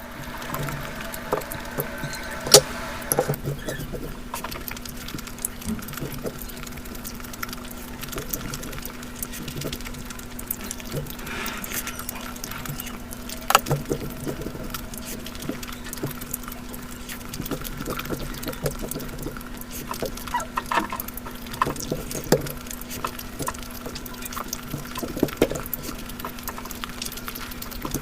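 Close-miked eating of egg curry with basmati rice: irregular wet chewing, smacking and small clicks, with a few sharper clicks, over a steady low hum.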